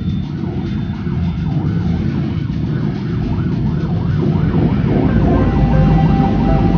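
Warbling sirens, several wavering tones overlapping, over the low, steady running of a group of motorcycle engines.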